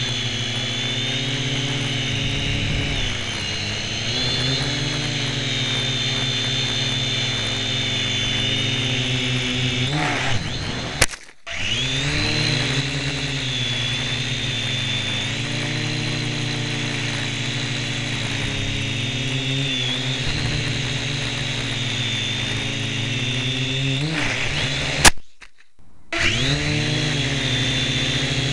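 Syma X1 quadcopter's four small brushed motors and propellers whining close up, heard from a camera strapped on top of the quadcopter. The pitch rises and falls as the throttle changes. Twice it cuts out for about a second after a click, then comes back climbing in pitch.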